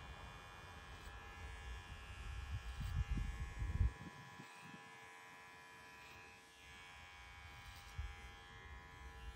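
Electric hair clippers buzzing steadily as they trim hair. There is a low rumble with a few thumps under the buzz in the first four seconds.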